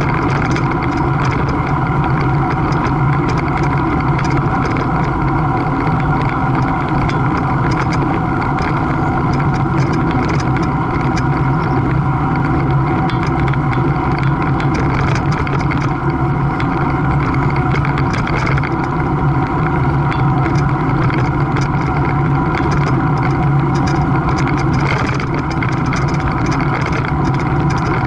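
A steady engine drone that holds one pitch throughout.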